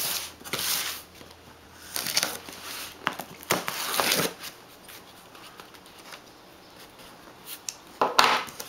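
Packing tape being peeled and torn off a cardboard shipping box, with the box scraping and rustling as it is turned over. There are short scratchy bursts early on, a quieter spell in the middle, and a louder rip about eight seconds in.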